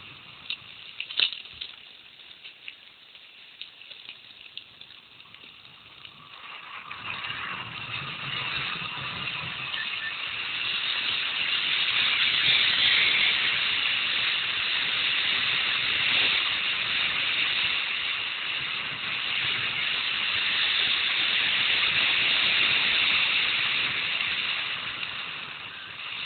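Rushing water of a mountain stream, a steady hiss that swells about six seconds in and stays loud, easing a little near the end. Before it, quieter rolling on gravel with a few sharp clicks and rattles from the mountain bike.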